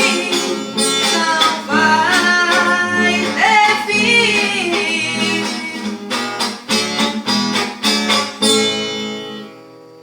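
A woman singing over guitar accompaniment, then a few struck chords and a final chord that rings out and fades as the song ends.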